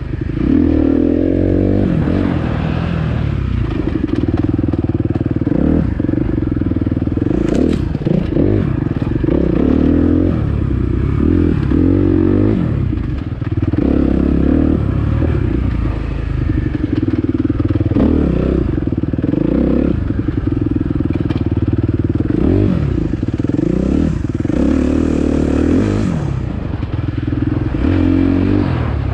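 Dirt bike engine under the rider, revving up and falling back again and again as the throttle is worked through tight trail riding.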